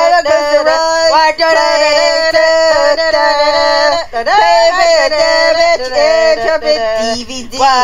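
A song: a voice singing long held notes over music, with a short break about four seconds in.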